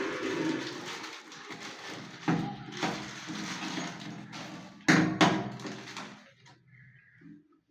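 Hard knocks and clunks of a flush handle and its fittings against a ceramic toilet cistern as the handle is fitted: one sharp knock about two seconds in and two close together near the five-second mark, each ringing briefly.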